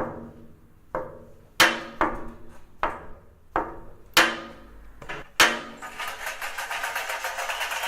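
Hammer blows: about eight sharp knocks at uneven intervals, each ringing briefly. Near the end a rapid rattling starts and grows louder, heard as a racket.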